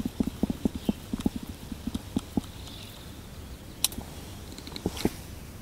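Bait-finesse baitcasting reel being wound in by its handle: rapid, uneven ticking for the first couple of seconds, then two sharper clicks later on.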